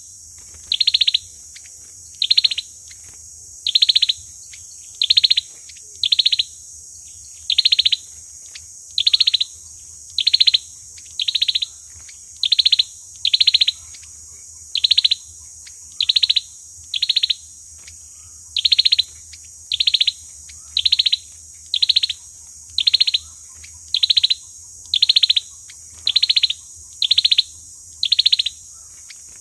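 Chim sâu dừa, a small songbird, calling over and over: a bright, identical short call about once a second, evenly spaced, as in a looped lure recording used to draw the bird into a trap. A faint steady hum and hiss lie underneath.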